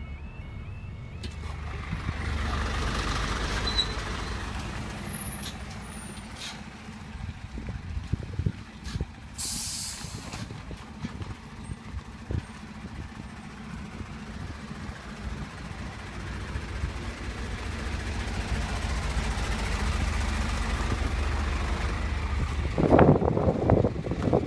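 A lorry at a level crossing: its engine runs and swells as traffic moves, and its air brakes give one short hiss about ten seconds in. The crossing's two-tone alarm cuts off about a second in, and a loud burst of knocks and rattles comes near the end.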